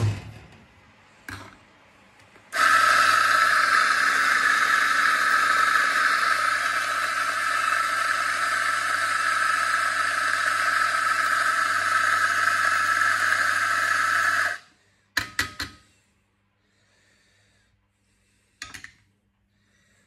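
Electric espresso grinder grinding coffee beans into a portafilter: a steady motor whine that starts a couple of seconds in and cuts off after about twelve seconds. A few short clicks follow.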